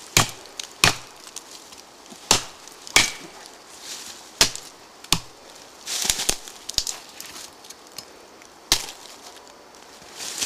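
A ParangXL machete chopping into a standing green tree trunk. There are seven sharp blade strikes at uneven intervals, mostly in pairs, each with a splintering crack, and lighter cracking and rustling about six to seven seconds in.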